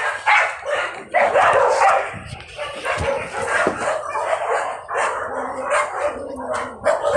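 Dogs barking over and over in quick short bursts.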